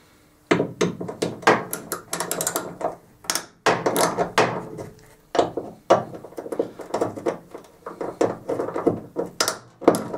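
Socket ratchet clicking in repeated short strokes as the 8mm bonnet hinge bolts are slackened off.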